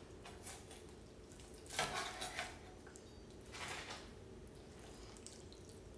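Chef's knife cutting through raw chicken on a plastic cutting board. Two brief scraping sounds come about two seconds in and again near four seconds.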